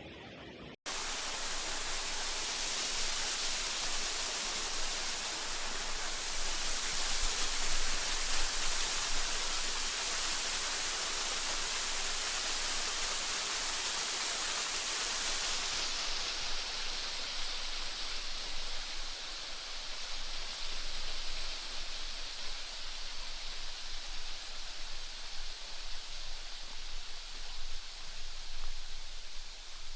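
Fast-flowing mountain river rushing: a steady, even hiss of moving water that begins abruptly about a second in.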